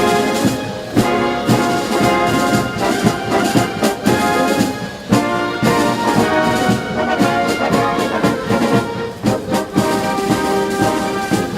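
Brass band playing, with pitched brass lines over frequent drum strikes.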